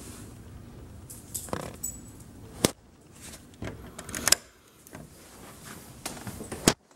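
Handling noise of a handheld camera being moved about: a few sharp clicks and knocks, the loudest about two and a half and four seconds in, over a low steady hiss.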